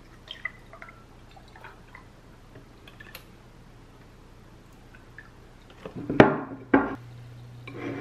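Milk poured from a carton into a glass: faint drips and trickling, then two louder glugs about six seconds in.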